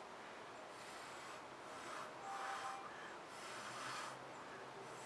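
Breath blown through a straw in about three long, hissing puffs, pushing wet acrylic paint across a canvas.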